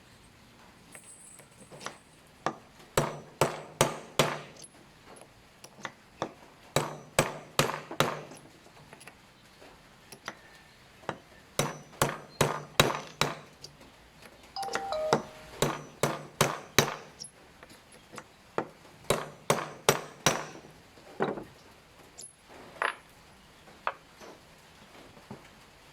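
Sharp metallic taps and clinks from working a .22 airgun pellet mold, coming several a second in bursts of a few seconds with short pauses between them.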